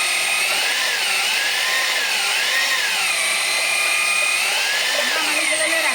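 Electric drill, rigged as a grinder, running while it grinds mango for juice; its motor whine rises and falls in pitch again and again as the speed and load change.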